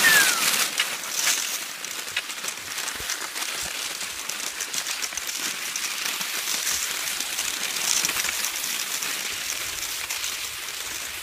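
Cross-country skis sliding along a groomed track in snow: a steady scraping hiss with scattered small crunches and clicks.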